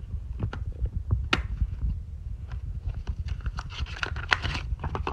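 Hands handling a white plastic disc case and a printed card, giving scattered clicks, taps and rustles over a steady low rumble of handling noise.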